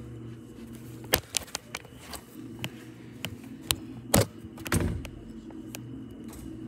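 Handling noise from a handheld camera held against a wall: a handful of sharp clicks and knocks at irregular times, the loudest about four seconds in, over a steady low hum.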